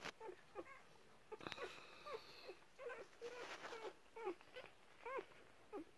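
Newborn Bernese Mountain Dog puppies squeaking and whimpering, with short high squeals that rise and fall, two or three a second, overlapping across the litter. There is a single faint click about a second and a half in.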